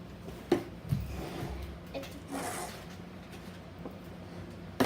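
Supplies being handled and set down on a table: a few sharp knocks, with rubbing and a brief rustle in between.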